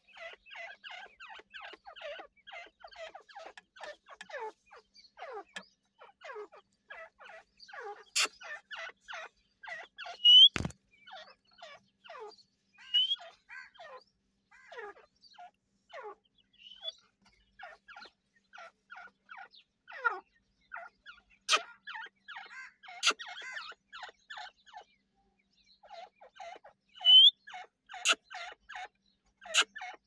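Grey francolins (teetar) giving a rapid run of soft, short clucks and cheeps, several a second with brief pauses. A few louder, higher chirps stand out, and there are occasional sharp clicks.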